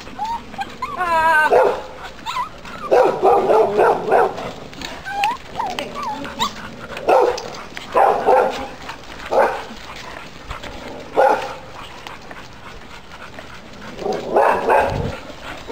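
Dog barking repeatedly in short bouts, with a wavering whine about a second in.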